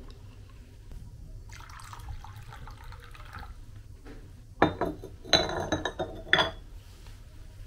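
Glazed stoneware pot and its ceramic top clinking together as the top is lifted out and set back, four sharp ringing clinks of pottery on pottery in the second half, after a softer stretch of handling noise.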